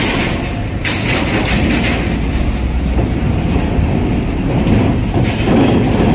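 Heavy truck hauling a Babaranjang railway wagon, a low steady rumble with loud metallic rattling and clanks, with knocks about a second in and again near the end.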